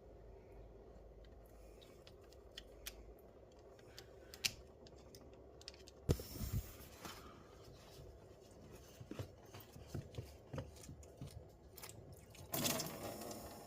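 Hand tools and parts being handled while working on the engine: scattered light clicks and knocks, a sharper knock about six seconds in, and two short hissing, rustling bursts, the second near the end.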